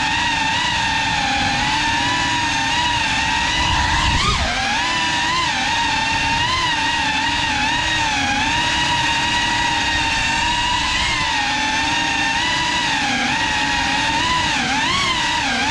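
GEPRC CineLog 35 cinewhoop quadcopter's motors and ducted propellers whining, the pitch wavering up and down with throttle, with a sharp dip and recovery about four seconds in.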